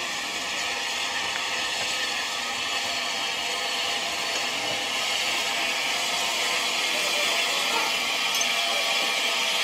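Southern Railway Battle of Britain class steam locomotive 34072 drifting slowly into the station with a steady hiss, growing slightly louder as it nears.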